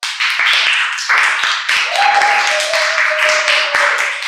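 Dense crowd noise with many rapid sharp claps, starting abruptly. A held steady tone rises out of it near the middle and steps slightly lower.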